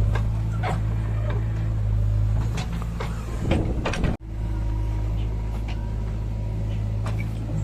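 Heavy diesel engine running steadily, with scattered knocks and clanks over it and a louder burst of noise just before the sound cuts out for an instant about four seconds in.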